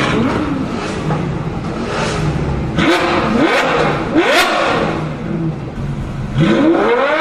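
Supercar engine accelerating hard. Its note climbs and drops back with each of several quick upshifts, eases off for a moment, then climbs again near the end.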